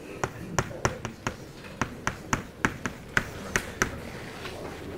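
Chalk tapping and clicking on a blackboard while writing: about a dozen sharp taps at an uneven pace of roughly three a second.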